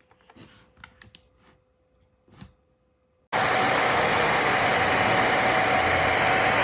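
A few light clicks and handling knocks, then about halfway through the JPHYLL mattress vacuum's motor switches on suddenly and runs steadily: loud rushing air with a steady whine.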